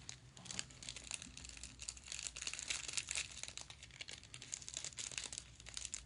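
Crinkling and rustling of a small jewellery packet being unwrapped and handled, as a run of quick, irregular crackles.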